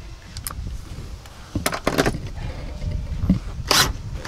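Irregular knocks and scrapes of a hand tool working on the bucket seat's mounting bolts and bracket, a cluster of clicks a little past halfway and a sharper knock near the end, over a low background rumble.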